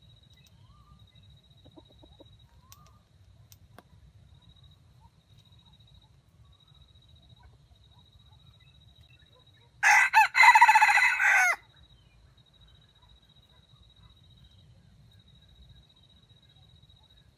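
A rooster crows once, about ten seconds in. The crow is short and broken: a brief first note, a gap, then the rest of the call, lasting under two seconds in all.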